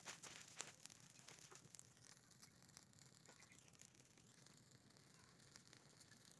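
Faint crackling of a burning pile of dry leaves, with sharp pops that come thickest in the first couple of seconds and then thin out over a soft hiss.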